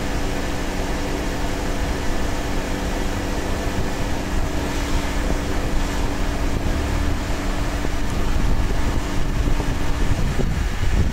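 Petrol pump dispensing fuel into a car: a steady mechanical hum with a few held tones, over a rushing hiss. The hum stops about ten seconds in, as the pump reaches the end of a £40 fill.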